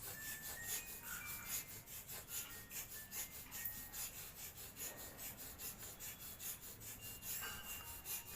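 Soft music: a fast, even scraping rhythm of about four to five strokes a second, with short bell-like notes here and there.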